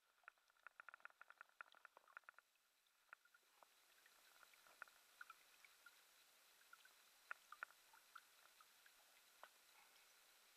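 Near silence with faint small clicks and light water patter close to the microphone: a quick run of clicks in the first couple of seconds, then scattered single ones over a faint hiss, as a trout is handled over shallow water.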